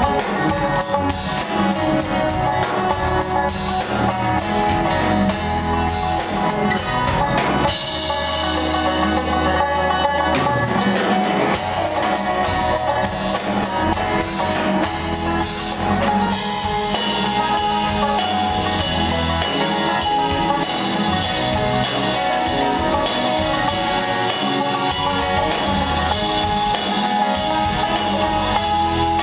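A live band playing an instrumental passage with no singing: banjo, acoustic and electric guitars and a drum kit. The drum hits and cymbals drop out for a few seconds about a third of the way through, then come back.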